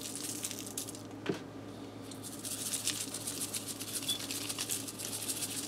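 Seasoning being shaken from a spice shaker onto diced potatoes on parchment paper: a rapid run of fine rattling ticks that grows denser about two seconds in, with one sharper knock about a second in.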